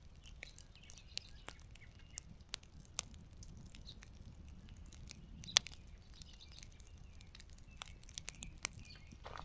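Campfire crackling, with irregular sharp pops and snaps from the burning wood; the loudest pop comes about five and a half seconds in.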